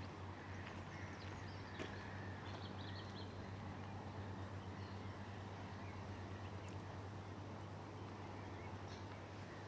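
Quiet waterside ambience under a steady low hum, with a brief twitter of small bird chirps about two and a half seconds in and a few faint clicks.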